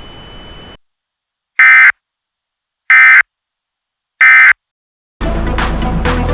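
Emergency Alert System SAME end-of-message signal: three short, loud buzzing data bursts about 1.3 s apart. Before them, a hiss with a faint steady tone cuts off just under a second in. Electronic music starts near the end.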